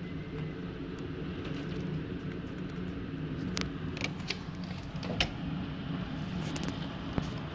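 Tornado winds and driving rain making a steady low roar, with several sharp knocks or cracks from about three and a half seconds in.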